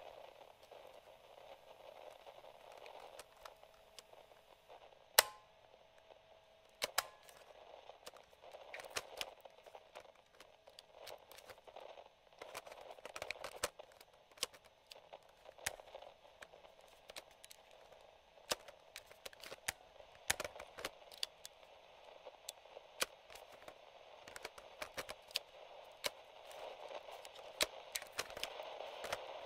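Vintage radio-cassette recorder controls clicking: many sharp small clicks of buttons, switches and slider controls scattered irregularly, the loudest about five seconds in. Under them a faint steady radio static hiss.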